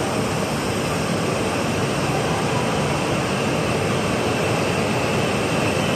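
H5 series Shinkansen train pulling into the station alongside the platform, a steady rushing noise of wheels on rail and air moving along the passing cars as it comes in to stop.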